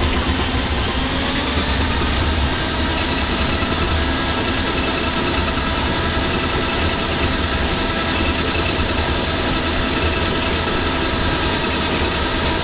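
Handheld electric drum drain auger running steadily, its cable spinning inside a kitchen sink drain line to clear a backed-up stack, with a constant low hum. Dirty water pours from the open tailpiece into a bucket below.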